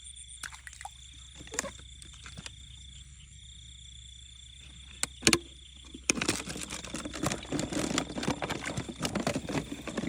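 Crickets or other insects trilling steadily, with a few sharp clicks and knocks, the loudest about five seconds in. From about six seconds in there is a busy stretch of rustling and crackling, like something being handled or moved through vegetation.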